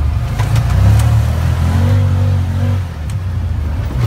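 Side-by-side UTV's engine running as it drives along, a steady low drone with a higher engine note coming in briefly about two seconds in.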